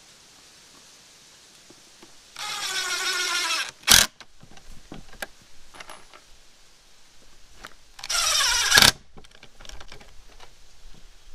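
Cordless power driver driving screws into a pine face frame: two runs of about a second each, the first longer, each ending with a sharp knock. Light clicks and knocks of wood and screws being handled come between them.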